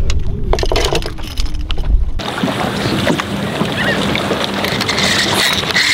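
Wind rumbling on the microphone aboard a boat, with a few sharp clicks as a speckled trout is handled; about two seconds in it switches abruptly to a steady hiss of water and wind with a faint low hum.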